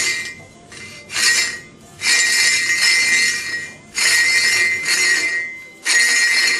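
A blunt screwdriver scraping the old rubber tire off a hand-turned bandsaw wheel. It comes in repeated scraping passes, the longest about two seconds, each with a steady ringing tone in it.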